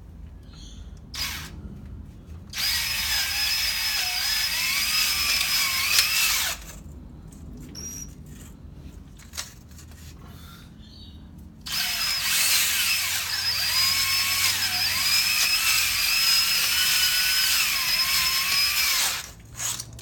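Electric drill spinning a cylinder hone in an engine bore, run in two long bursts after a short blip. Its whine wavers in pitch as the hone loads up in the bore.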